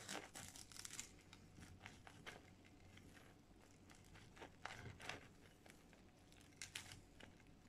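Knife sawing through the crisp crust of toasted cheese sandwiches on a wooden board: faint, scattered crunches and crackles.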